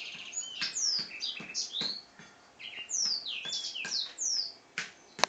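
Caged black-throated canary (blackthroat) singing a fast, varied warble of quick whistled notes sweeping down and up, with a short break about two seconds in. A sharp click sounds just before the end.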